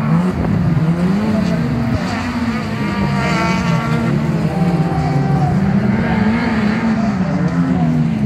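Engines of small race cars racing on a dirt circuit, revving up and down so the pitch rises and falls over and over with throttle and gear changes, one engine briefly screaming higher about three seconds in.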